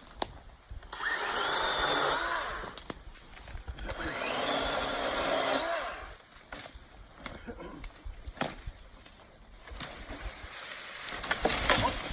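DeWalt 20-volt brushless battery chainsaw cutting brush in two bursts of about two seconds each. Several sharp knocks follow, then more noise near the end.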